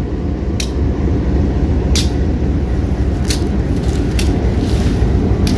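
Diesel locomotive engine running close by, a steady low rumble, with a sharp click about once every second or so.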